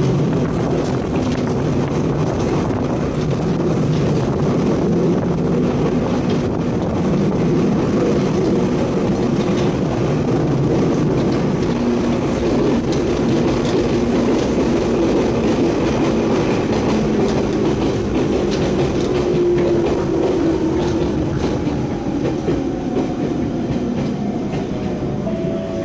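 Hokuriku Railroad electric train running, heard from inside the passenger car: a steady rumble of wheels on rail with rail-joint clicks and a motor hum. Over the last few seconds the hum falls in pitch as the train slows for the next station.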